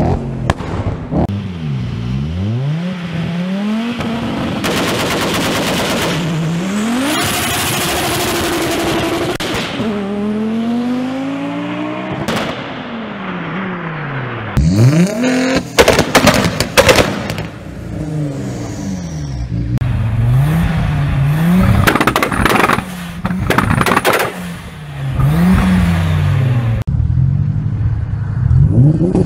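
Several Audi engines in turn revving hard on anti-lag and two-step launch control, the pitch climbing and dropping again and again, with rapid crackling pops and loud bangs from the exhaust. The loudest run of bangs comes about halfway through.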